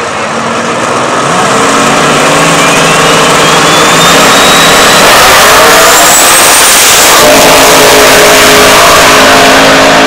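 Two drag cars, the Oldsmobile 442 Cutlass and its opponent, launching about a second in and running at full throttle down the strip, very loud, their engine notes rising in pitch. A high whine climbs in pitch alongside them and stops about seven seconds in.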